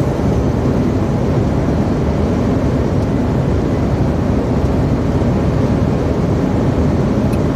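Steady drone inside a truck cab cruising at motorway speed: engine and road noise with no change in pace.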